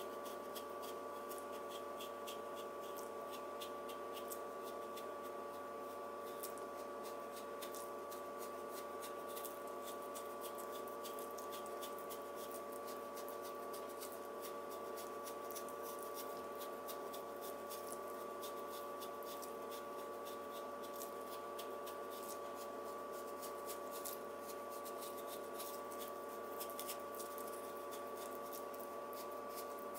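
Yanagiba knife blade paring a continuous paper-thin sheet from a daikon radish (katsuramuki): a faint, irregular crisp ticking as the edge shaves through the radish, over a steady hum.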